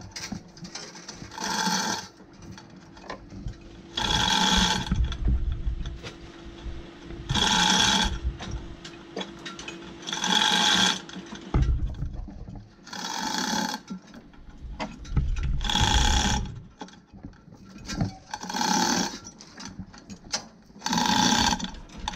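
Manual chain hoist lifting an engine block. The hand chain is pulled in bursts of rattling, clicking ratchet noise about a second long, roughly every three seconds.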